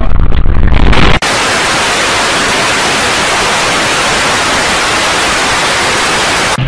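Steady, even white-noise hiss of TV static, starting abruptly about a second in and cutting off near the end. Before it comes a louder, low rumbling noise.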